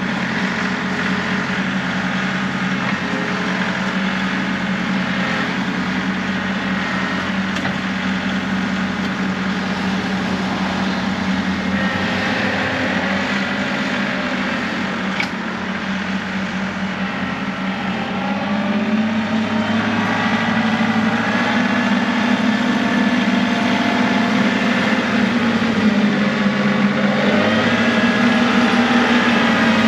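John Deere 2038R compact tractor's diesel engine running steadily while plowing snow. About nineteen seconds in, it rises in pitch and gets louder as it speeds up.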